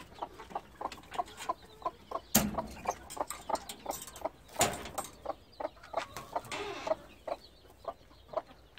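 Chickens clucking in short repeated notes, several a second, with two sharp knocks about two and a half and four and a half seconds in.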